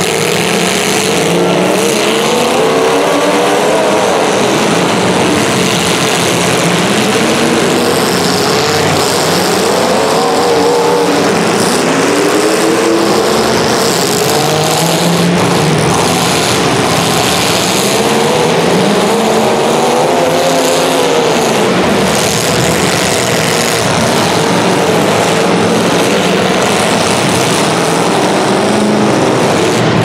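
Several demolition derby car engines revving hard and loud, their pitches rising and falling again and again over one another.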